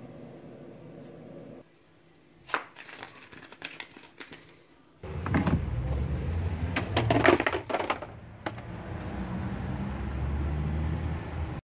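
Paper and cardboard crinkling and clattering as they are handled, loudest for a couple of seconds just after a low steady rumble sets in about five seconds in.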